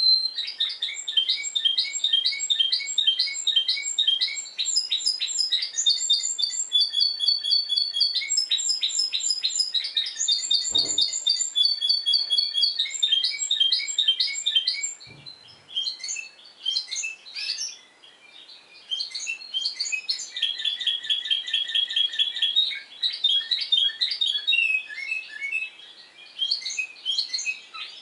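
A Timbrado Español canary of the discontinuous-song type singing. It delivers phrases of rapidly repeated high notes and rolls, each held on one pitch before switching to another. The song thins out for a few seconds past the middle, then resumes.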